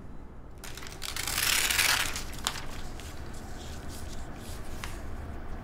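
Paper rustling and shuffling on a desk, with a louder swell of rustle lasting about a second early on, then quieter handling with a few light taps.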